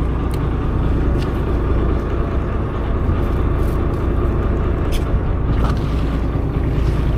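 Steady low rumble aboard a small fishing boat at sea, with a few faint clicks.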